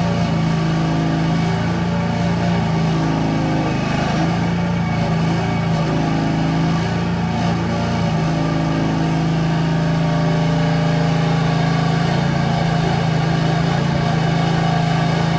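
Mini excavator's engine running steadily while it digs, its note shifting a little about four and eight seconds in as the load changes.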